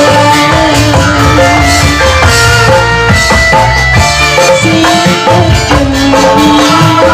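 Loud, amplified live music of a Reog Indramayu troupe: drums and percussion keeping a steady beat under a melody, with a woman singing through a microphone.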